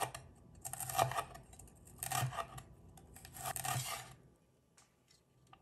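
Chinese cleaver slicing a jalapeño into strips on a wooden cutting board: three slicing strokes, each under a second long, the blade cutting through the pepper and scraping the board.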